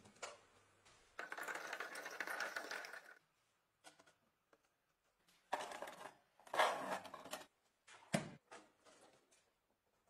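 Quiet handling sounds of a plastic bottle and a metal cleaver on a workbench: a stretch of rustling and scraping about a second in, a couple of shorter scrapes later, and a sharp knock near the end.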